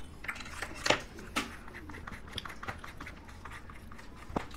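Ice cream eating sounds: small spoons clicking, tapping and scraping against ice cream cups, with soft lip and mouth sounds, in a scatter of sharp little clicks. The loudest come about a second in and again near the end.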